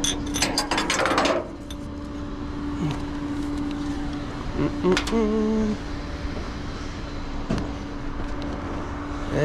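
Tow truck running with a steady hum, with rattling and clinking in the first second and a half as the car is unhooked, and a few single knocks later.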